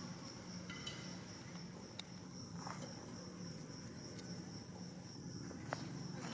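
Insects chirring outdoors in a steady, high-pitched drone, with a couple of faint clicks.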